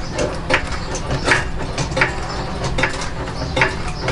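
A jack being pumped to raise a Toyota Camry's engine off its mounts, a sharp click on each stroke about every three-quarters of a second.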